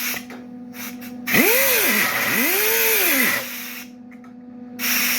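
Power grinder worked against the tailgate's sheet steel in short bursts. In the longest burst, of about two seconds, its whine twice rises and sags as it bites, and near the end it spins down with a falling whine. A steady hum runs underneath.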